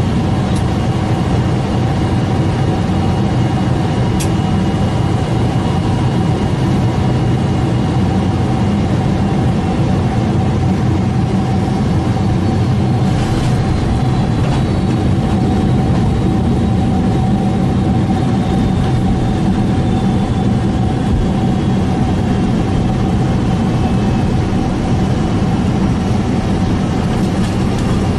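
Boeing 747 cabin noise on landing: the engines and rushing air make a steady, loud rumble with a constant whine. A fainter high whine slowly falls in pitch partway through as the jet rolls out along the runway.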